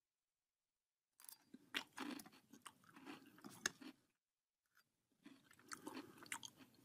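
Faint chewing of a mouthful of crunchy breakfast cereal, crackly munching in two bouts: the first starts about a second in and lasts about three seconds, the second begins about five seconds in.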